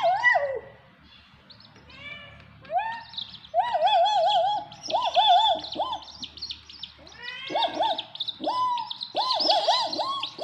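Young chicks peeping in many short, repeated calls, with a kitten mewing among them.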